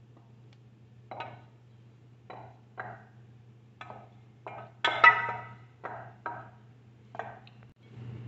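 A stainless steel saucepan and spatula knock and clink against ceramic pasta bowls as penne is scraped out of the pan. There are about ten short knocks, and the loudest one, about five seconds in, rings briefly like metal.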